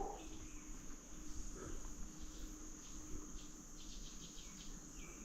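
Insects, crickets by the sound, chirring steadily in a continuous high trill, with a few faint light ticks in the middle.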